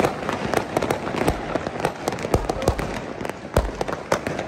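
New Year's fireworks going off: a dense, irregular crackle of firecracker pops and bursting shells, with several deeper booms among them.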